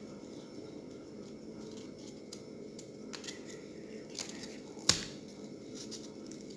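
Corrugated cardboard and a wooden ice-cream stick being handled and fitted together: soft rustles and a few small clicks, with one sharper click about five seconds in, over a steady background hum.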